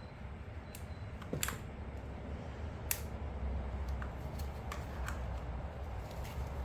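Scattered light clicks and taps of a Husqvarna 128LD string trimmer's parts being handled and worked, about six or seven spread irregularly, over a low steady hum.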